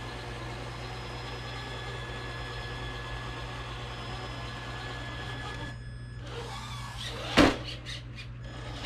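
Traxxas TRX4 RC crawler's electric motor and geared drivetrain running steadily with a faint high whine, stopping about six seconds in. A single sharp knock follows about a second and a half later.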